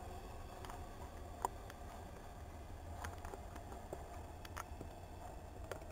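Faint low rumble of an electric multiple-unit train pulling away into the distance, with a scattering of light clicks.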